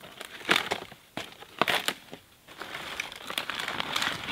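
Dry sticks and bark being handled and piled into a fire ring to lay a fire: a few sharp crunches and snaps, then a longer crinkling rustle in the second half.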